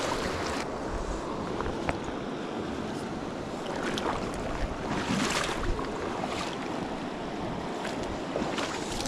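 Shallow mountain creek running steadily over rocks and riffles, with a few brief splashy bursts on top.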